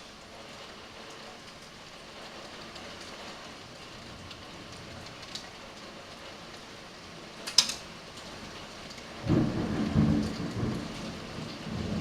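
Steady heavy rain with scattered sharp ticks of hailstones striking, one of them loud a little past halfway. About three quarters of the way in, a loud low rumble of thunder sets in and keeps going.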